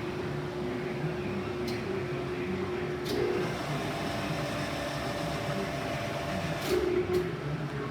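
DeVlieg machine tool running with a steady mechanical hum and a held tone that steps up in pitch a little past a third of the way in, with a few short sharp ticks.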